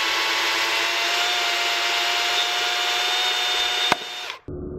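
DeWalt electric chainsaw running at a steady high whine. About four seconds in, the chain knocks the crown cap off a glass Coca-Cola bottle with a sharp pop. Half a second later the saw sound cuts off and gives way to a quieter, muffled sound.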